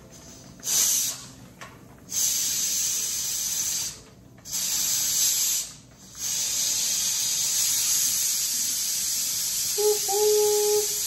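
Stovetop pressure canner venting steam through its vent pipe as the regulator weight is held up, letting off the pressure left after processing. It comes as a few bursts of loud hissing, then settles into a steady hiss from about six seconds in. A short steady tone sounds about ten seconds in.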